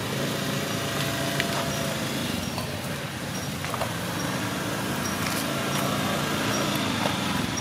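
A motor vehicle engine running steadily in the background: an even, unbroken hum.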